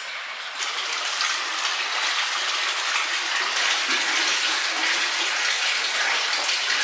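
Hot spring water pouring steadily into an open-air rock bath, a continuous rushing splash that gets louder about half a second in.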